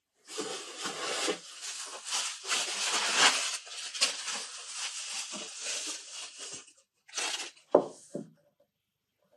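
Plastic bubble wrap crinkling and rustling as it is pulled off a glass. The sound is dense and crackly for about six and a half seconds, then after a brief pause a shorter rustle comes with one sharp louder sound near the end.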